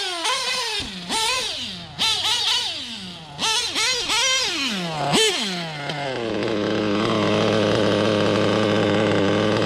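Novarossi .25 nitro truggy engine on a break-in run: the throttle is blipped about once a second, each time revving up sharply and falling away. In the last few seconds it holds a steady running note.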